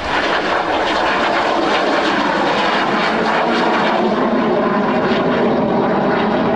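Messerschmitt Me 262 replica's twin turbojet engines (General Electric CJ610) running loud as the jet flies past. The sound is a dense, steady jet noise whose pitch slides down a little about two seconds in.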